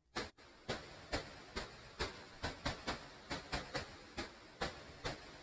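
A faint run of sharp clicks, two or three a second and unevenly spaced, over a low hiss.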